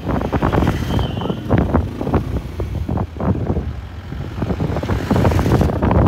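Wind buffeting the microphone of a moving motorbike, over the rumble of the ride on a rough mountain road. An oncoming SUV goes by about five seconds in, adding a brief rush of hiss.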